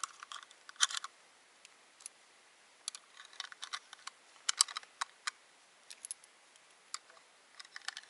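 Cartridges being pressed one at a time into the five-round detachable magazine of a CZ 527 .223 Remington bolt-action carbine: small, sharp metallic clicks at irregular intervals, in short clusters.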